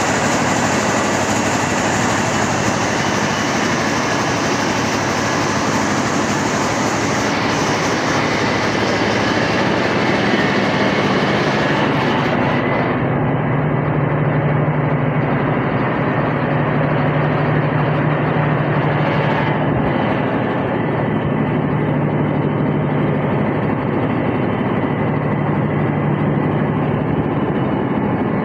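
Mobile rice mill running steadily as it mills paddy into rice: a loud, dense machine noise. About halfway through, the high hiss falls away and a steady low hum comes forward.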